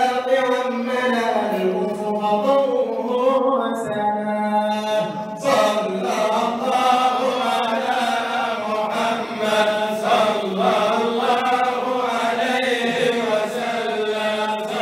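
Male voices chanting an Arabic devotional poem in praise of the Prophet (madih), a lead singer on a microphone with other men singing along. The long melodic line thins briefly about four seconds in, then the lead voice comes back in strongly.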